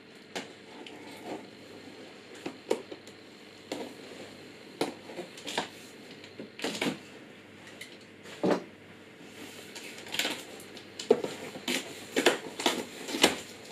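A large cardboard box being opened by hand: irregular scrapes, crackles and knocks of the cardboard flaps and packaging, a dozen or so separate strokes with one louder knock about halfway through.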